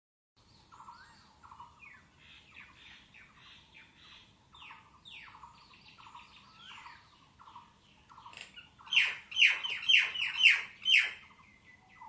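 Common mynas calling: a steady run of quieter repeated chirping calls, then a loud burst of about six quick falling calls about nine seconds in.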